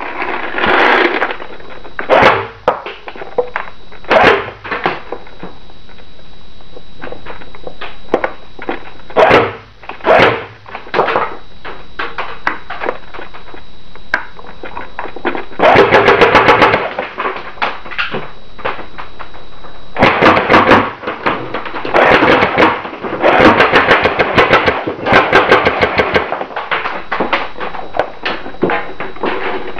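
Airsoft BB guns firing at old CDs: rapid bursts of shots, some lasting a second or more, with single shots in between.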